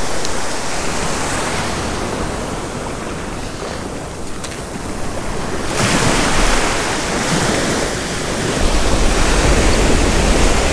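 Ocean surf breaking and washing up the beach as a continuous rushing wash, with one louder surge about six seconds in. Wind buffets the microphone with a low rumble over the last couple of seconds.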